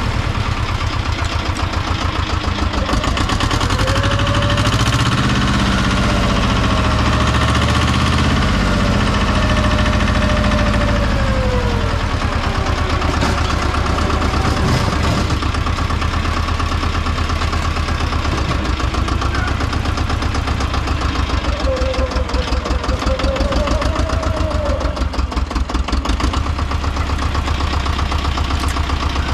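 Tomo Vinković TV 731 tractor engine running steadily, with a wavering tone that glides up and down in pitch a few times.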